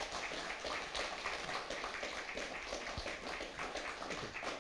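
Audience applauding, many people clapping at once.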